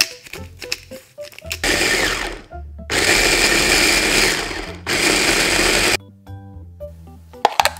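Electric mini chopper running in three bursts, about a second, two seconds and a second long, its blades whirring through avocado, basil, garlic and pine nuts to make a thick, creamy sauce.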